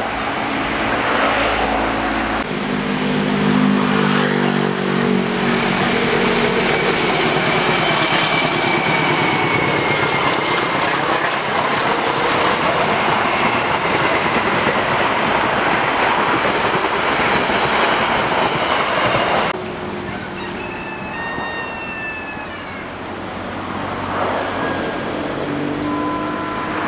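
A horn blast whose pitch slides down, then a long-distance passenger train of stainless-steel coaches passing close at speed: a loud, steady rush of wheels on rail for about fifteen seconds. It gives way suddenly to the quieter sound of an approaching diesel locomotive hauling a container train.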